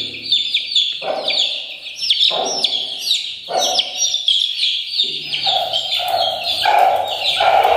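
Aseel chicks peeping: a constant stream of short, high, downward-sliding chirps, many overlapping each second. From about five seconds in, a lower sound joins beneath them.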